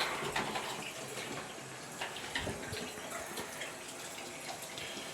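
Water running steadily from a tap, with a few small knocks about two seconds in.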